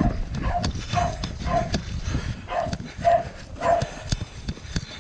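A dog barking repeatedly, about six short barks in a quick series, over scattered clicks and rustling.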